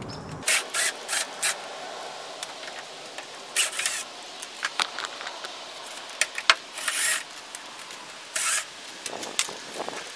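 Cordless DeWalt driver running in a string of short bursts as it backs screws out of a car trim panel, with clicks and scrapes of plastic and metal in between.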